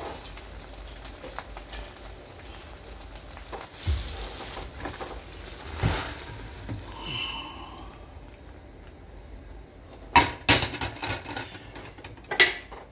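A frying pan being handled and moved on an electric stovetop: a few dull thumps, then several sharp metal knocks and clanks about ten seconds in, as it is set down.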